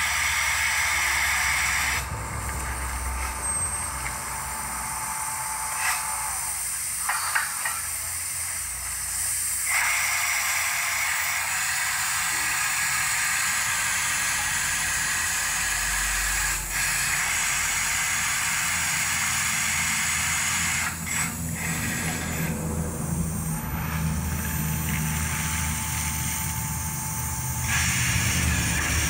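Water-well drilling rig blowing compressed air and spray out of the borehole, a loud hiss over the steady hum of the rig's engine. The hiss drops away about two seconds in, comes back near ten seconds, drops again a little past twenty seconds and returns near the end.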